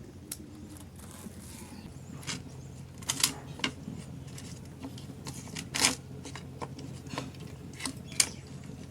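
Kitchen work sounds: a series of short, sharp clicks and taps of utensils, irregularly spaced, over a steady low hum.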